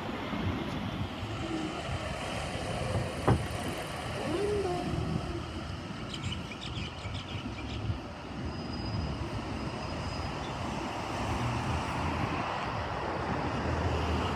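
Street traffic: cars and a bus passing, a steady rumble of engines and tyres. A single sharp knock sounds about three seconds in.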